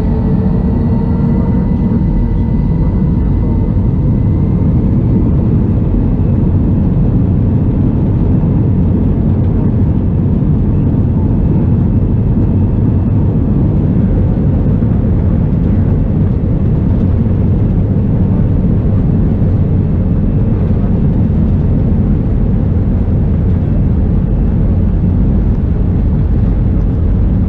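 Airbus A321-211's CFM56 jet engines at high power, heard from inside the passenger cabin as a loud, steady rumble. A rising engine whine fades into it over the first few seconds, typical of a takeoff roll.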